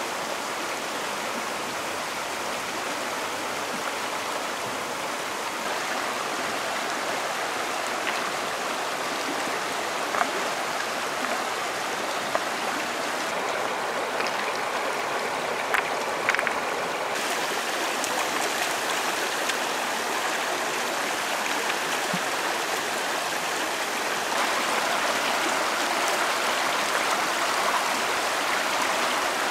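Shallow rocky stream rushing steadily over stones. A few light knocks come through as stones are set into a low rock weir.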